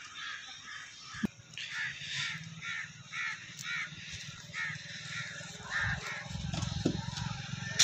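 A crow cawing over and over, about two caws a second for several seconds, with a single sharp click about a second in.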